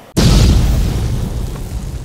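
A deep, loud boom sound effect that hits sharply just after the start and then fades away slowly, the kind of impact hit used on a logo card.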